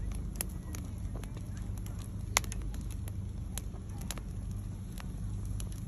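Split logs burning in a stainless-steel fire pit, giving off scattered sharp crackles and pops, irregular and a few per second, with one louder pop about two and a half seconds in. Under them runs a steady low rumble.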